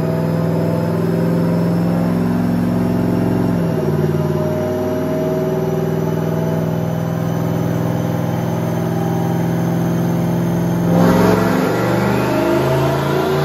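Single-turbo 2018 Mustang GT's 5.0 L V8 running steadily on a chassis dyno, with a faint high whine slowly rising in pitch. About eleven seconds in the engine suddenly gets louder and its pitch starts climbing as the full-throttle power run begins.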